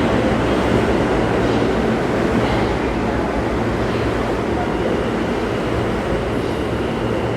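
R160 New York City subway train running through a station, a loud steady rumble of wheels on rail with a low motor hum.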